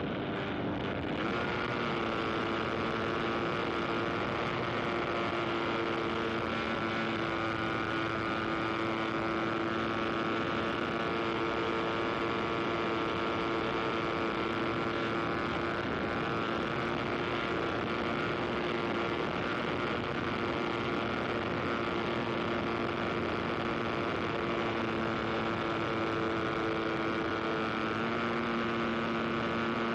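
An aircraft engine running steadily, a constant pitched drone over rushing noise, its pitch stepping up slightly about a second in and shifting again near the end.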